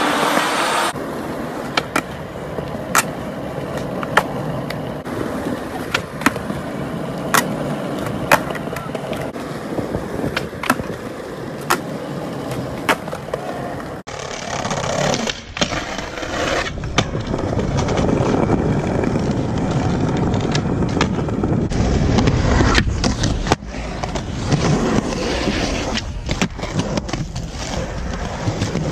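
Skateboard wheels rolling on smooth concrete, with a run of sharp clacks from the board popping and landing tricks in the first half. Over the second half the rolling is louder and denser and the clacks are fewer.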